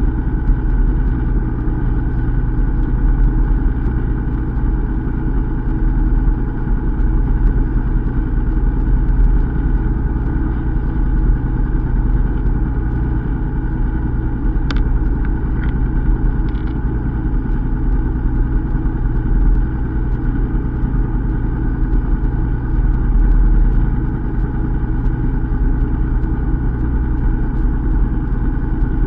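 Fishing boat's engine running steadily with a low hum. A few brief high-pitched chirps cut through about halfway.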